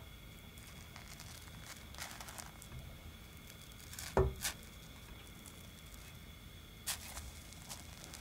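A spatula working under a pancake in a nonstick frying pan, then a soft thud about halfway through as the pancake is flipped over and lands back in the pan, with a smaller knock just after and a light click near the end.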